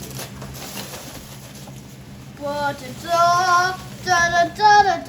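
A high voice singing a few short held notes with a slight wobble, starting about halfway through.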